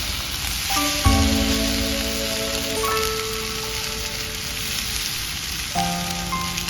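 Background music of held notes and chords that change every second or two, over a steady sizzling hiss of beef searing over a campfire.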